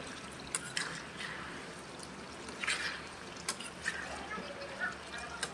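Metal spatula stirring chunks of pork and taro in gravy in a wok: irregular scrapes and clicks of metal against the pan, with wet sloshing of the thick gravy.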